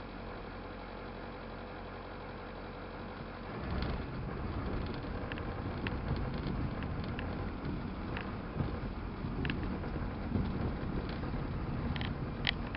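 Truck engine heard from inside the cab, running steadily, then louder and rougher from about three and a half seconds in as the truck reverses under load, dragging a round hay bale over snow. Scattered short squeaks and clicks through the second half, strongest near the end.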